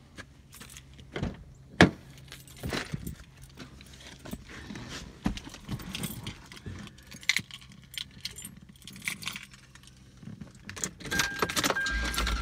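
Keys jangling among the clicks and knocks of someone climbing into an SUV, the sharpest knock about two seconds in. Near the end a repeating dashboard chime sounds and the engine starts with a low rumble.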